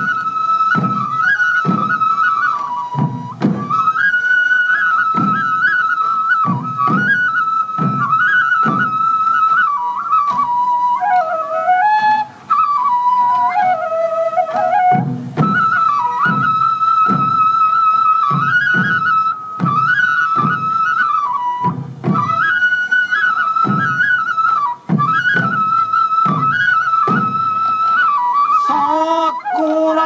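Sansa odori festival music: a Japanese bamboo transverse flute (fue) plays a repeating, ornamented melody over the steady beat of large sansa taiko drums. Near the end, voices join in with a chant.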